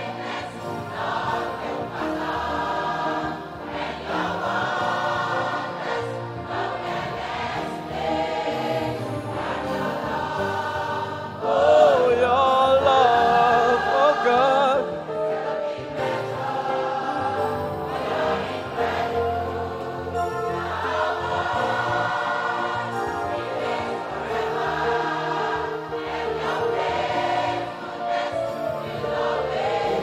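A large youth choir sings a gospel worship song in full harmony, backed by a live orchestra of strings, brass and keyboards. About twelve seconds in, a louder line with wide vibrato rises above the choir for a few seconds.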